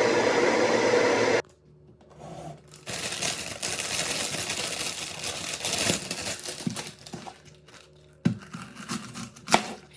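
A steady machine whir cuts off abruptly about a second and a half in. Then comes several seconds of crinkling and rustling, followed by a few sharp knocks near the end.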